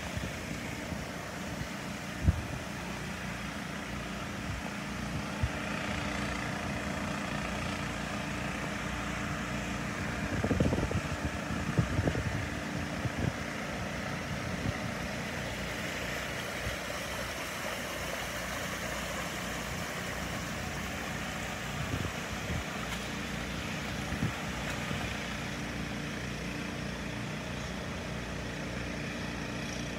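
An engine running steadily at idle, with outdoor hiss around it and a few short thumps about ten to thirteen seconds in.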